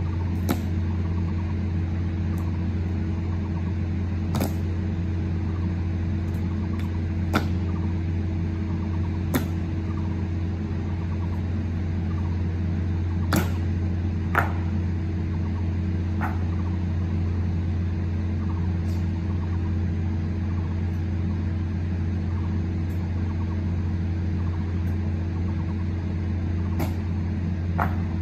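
Sharp single clacks every few seconds at uneven spacing from an honor guard's slow ceremonial march of boots and rifles, over a steady low hum.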